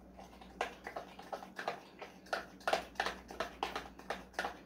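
Spoon clinking against the sides of a glass measuring cup while stirring a thick cake filling, a quick, uneven run of light ticks.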